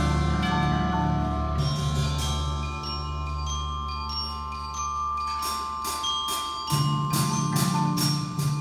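Percussion ensemble playing mallet keyboards, marimba-led, with ringing pitched notes over sustained low bass notes. Past the middle, a run of sharp, bright high mallet strikes comes at about three a second while the low notes drop out briefly.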